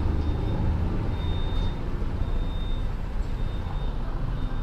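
Honda SH150i scooter's single-cylinder four-stroke engine running steadily while riding through city traffic, a low hum mixed with road and wind noise.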